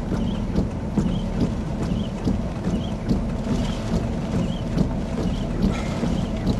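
Hurricane-force wind gusting across the microphone, a steady low rumble and rush. Faint short chirps repeat at a steady pace over it.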